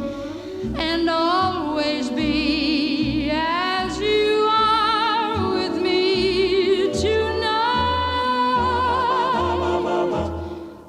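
Background music: a vocalist singing a slow ballad in long, wavering held notes over instrumental backing with a steady, stepping bass line.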